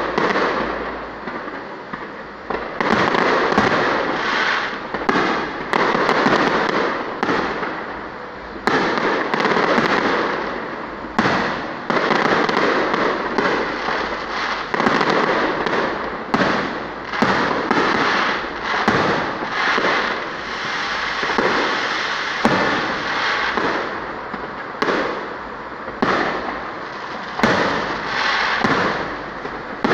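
Aerial fireworks display: a rapid run of shell bursts, a sharp bang about every second, each trailing off into a fading crackle before the next one.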